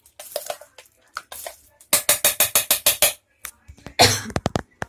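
A steel spoon scraping and clicking inside a steel mixer-grinder jar of thick ground moong dal paste, then a quick run of about ten sharp taps on the jar. Near the end comes one short, loud rush.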